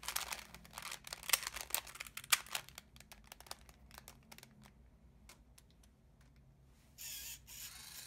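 Rubik's Cube layers twisted quickly by hand: a fast run of faint plastic clicks for about three seconds, thinning to scattered clicks and then stopping.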